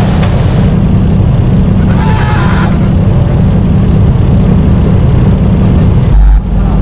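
Loud, distorted bass-heavy music played through a sound system: a dense, steady low thump with a brief high melodic figure about two seconds in and a deep bass hit near the end.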